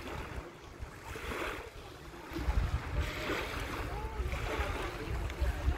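Small waves lapping in repeated soft washes, with wind buffeting the microphone as a low rumble from about two seconds in.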